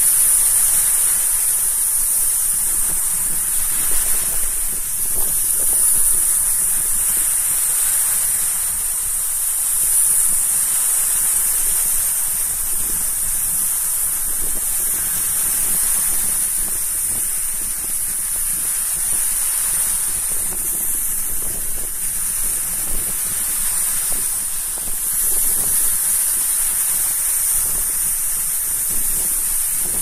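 Sea surf on a beach: small waves breaking and washing up the shore in a continuous rush that swells and eases every few seconds, over a steady high-pitched hiss.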